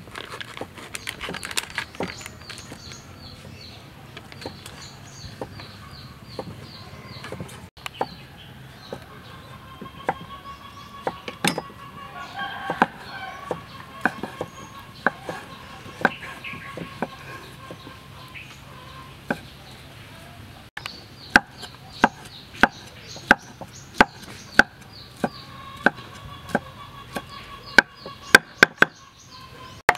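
Cleaver chopping ham on a thick round wooden chopping board, sharp knocks that become regular at about one to two a second in the last third and are the loudest sounds. Birds call in the background, most in the middle.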